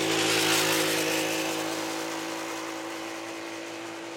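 1966 Honda P50 moped's 50cc four-stroke engine passing close by, loudest about half a second in, then fading steadily as the moped rides away.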